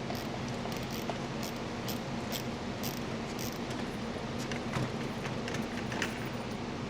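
Steady low hum with a dozen or so light clicks and taps scattered through it, as of small tools and fasteners being handled.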